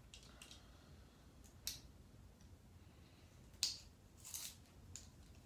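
A few faint, short sharp rustles and snips as a fabric head tie is taken off the hair, the loudest about three and a half seconds in.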